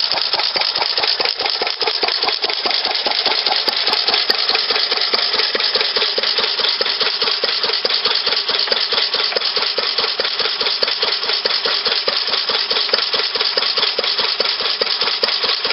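New Idea "vari-speed" single-cylinder hopper-cooled stationary gas engine running steadily, with an even, rapid exhaust beat and no pauses between firings.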